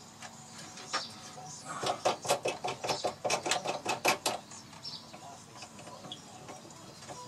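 A quick run of sharp clicks and knocks lasting about two and a half seconds, from about two seconds in, as a wooden baseball bat is set and clamped into a small CNC engraving machine. Quieter handling noise follows.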